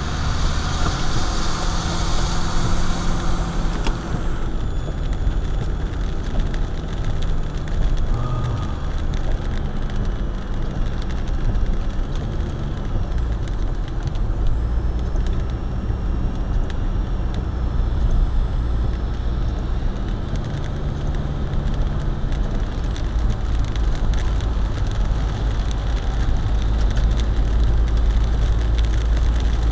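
Car driving in rain, heard from inside the cabin: a steady low rumble of tyres on the wet road with engine hum and rain hitting the car. A brighter hiss stands out for the first four seconds.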